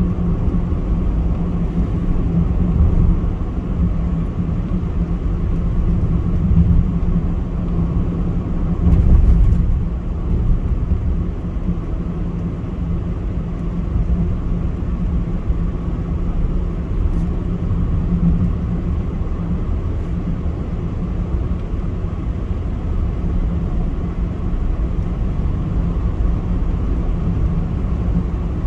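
Car driving along a road, heard from inside the cabin: a steady low rumble of engine and tyre noise that swells briefly about nine seconds in.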